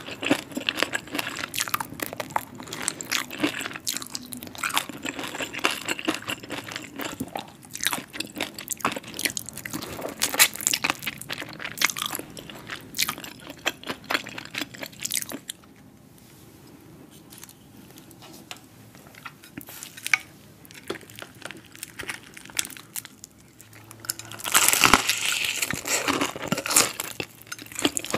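Close-miked chewing and crunching of crispy, heavily breaded spicy fried chicken: dense crackly bites and chews. There is a quieter stretch of softer chewing a little past halfway, then loud crunchy bites near the end.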